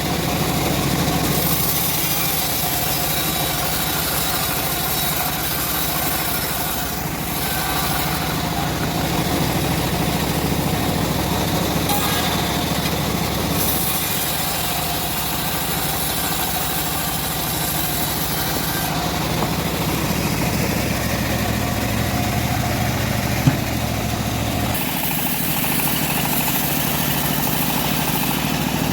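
Engine of a homemade bandsaw mill running steadily, with one sharp click about three-quarters of the way through; its low hum drops a little soon after.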